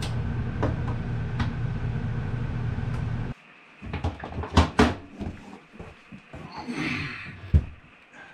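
A steady mechanical hum with faint clicks cuts off suddenly about three seconds in. It is followed by scattered knocks and clunks, a short scraping slide and a sharp thump as a microwave is handled and fitted into a wooden cabinet.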